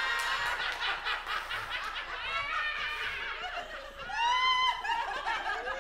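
People laughing and chuckling, several voices at once, with one louder laugh about four seconds in.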